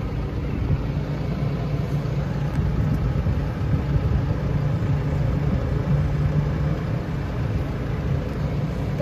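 Tractor engine running steadily, heard from inside the cab, while the front loader handles a round bale.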